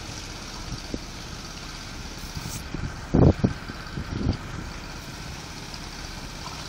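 Steady low engine rumble, with two short low thumps about three and a bit over four seconds in, the first the loudest.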